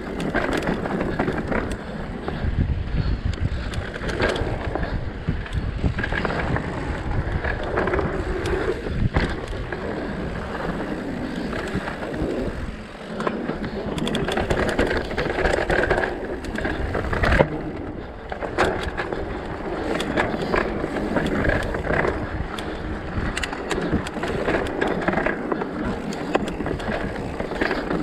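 Mountain bike riding a rocky dirt trail: tyres rolling and crunching over dirt and stones, with the bike rattling and clattering over the bumps and a sharp knock a little past halfway.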